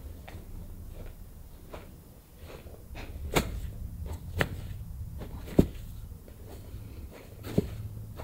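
A few sharp cracks from the spinal joints as the upper back is pressed by hand, coming at irregular intervals, the loudest about five and a half seconds in.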